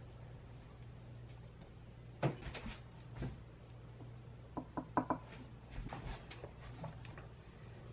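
Light knocks and clicks of a metal bench scraper and a spoon against a wooden board as bread flour is spooned onto it: a few taps about two seconds in, then a quick run of small ringing clicks around five seconds in, over a faint low hum.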